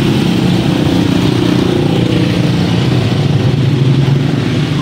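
A motor vehicle engine running close by, a loud, steady low drone, amid street traffic.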